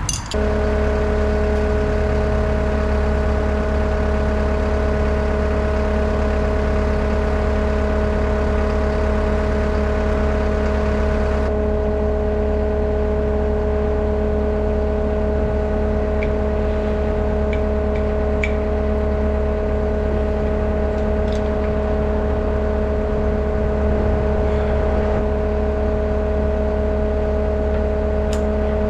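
A steady mechanical hum with several constant tones over a low drone, starting abruptly and holding unchanged, with a few faint light clinks partway through.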